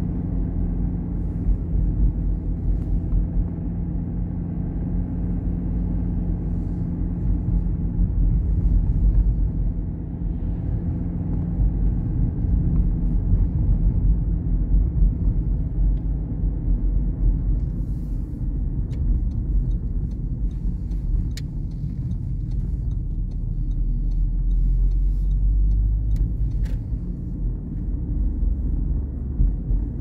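Car driving on a country road, heard inside the cabin: steady low engine and tyre rumble, with a few faint clicks in the second half.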